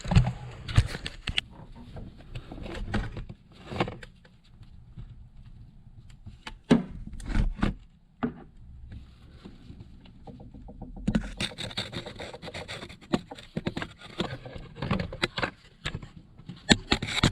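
Hands working on an engine with its intake off: scattered clicks and knocks of parts and tools being handled, and from about two thirds of the way in a busier stretch of scraping and rubbing.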